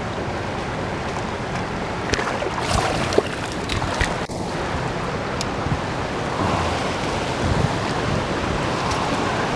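Steady rush of turbulent spillway tailwater below a dam. A few sharp clicks and knocks come between about two and five seconds in.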